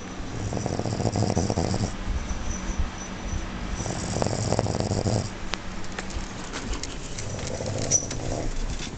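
A woman snoring in her sleep: three long snores, one every three to four seconds, the first two with a hiss on top.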